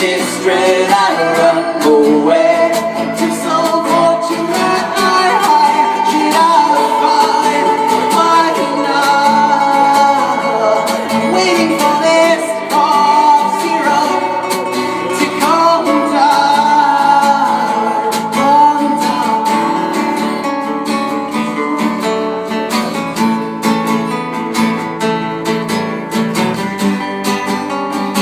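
Live song with strummed acoustic guitar and a voice singing over it.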